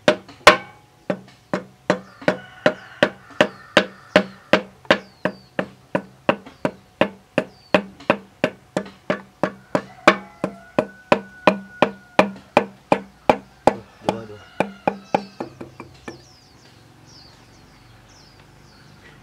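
Steady hammer blows, about three a second, on a bar driving the piston out through the cylinder bore of a tractor's diesel engine; the knocking stops about 16 seconds in.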